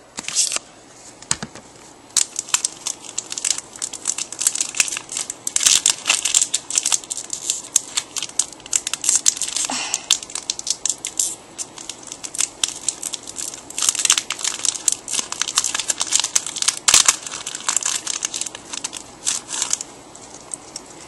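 A Pokémon Call of Legends booster pack's wrapper crinkling and being torn open, in many short rustling bursts.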